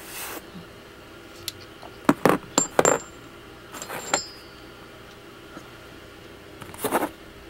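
Small steel parts of a tap wrench clinking against each other and on a hard surface: a few sharp clicks with a brief metallic ring, in clusters about two seconds in, around four seconds and again near the end.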